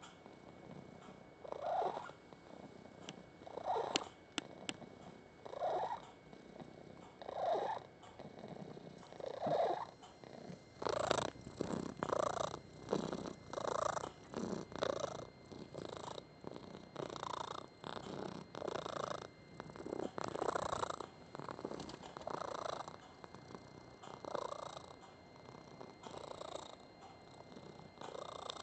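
Domestic tomcat purring loudly with a squeaky, chirping note on each breath, about every two seconds at first and then faster, about once a second, from about eleven seconds in. The squeaky purr is a sign that the cat is content.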